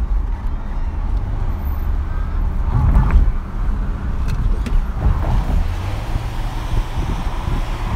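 Car running, a steady low rumble heard from inside the cabin, swelling louder briefly about three seconds in.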